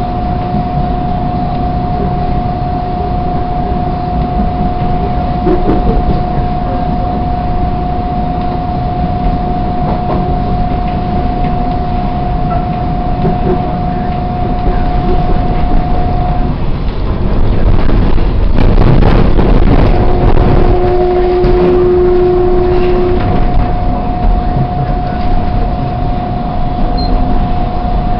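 TTC subway train running on surface track, heard from inside the car: steady wheel-on-rail rumble with a constant high whine. About two-thirds through, the whine drops out for a few seconds while a louder rush of track noise peaks. A brief lower tone follows, then the whine returns.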